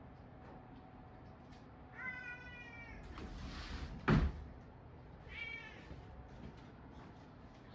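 A cat meowing twice, a longer meow about two seconds in and a shorter one a little past five seconds, with a breathy rushing noise after the first meow and one sharp thump about four seconds in.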